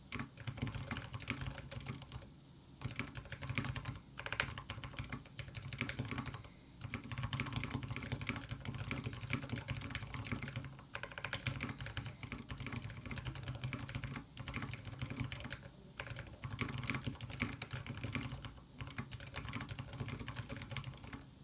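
Typing on a mechanical keyboard with Weaven 62g Ergo Clear switches fitted with SPRiT springs, placed on a table: steady runs of keystrokes broken by short pauses. The spacebar, on a Kailh Burnt Orange switch, is among the keys pressed.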